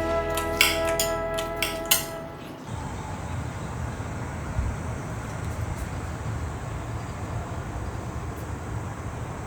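Background music with a few sharp clinks, stopping abruptly about two and a half seconds in; then a steady low rumble of outdoor background noise.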